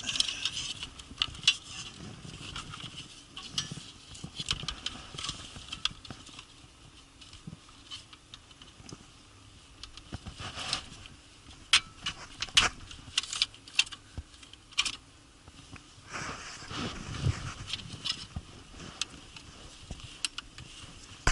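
Scattered clicks and light rattles of plastic console trim and wiring being handled inside a car, with a rustling stretch a little past the middle.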